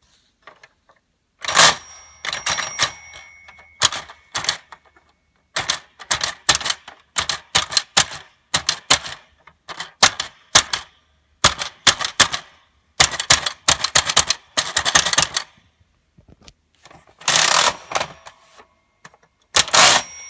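Tomy Tutor Typer toy typewriter being typed on: keys struck in quick bursts of sharp clacks with short pauses between. A ringing tone sounds about a second and a half in and again near the end.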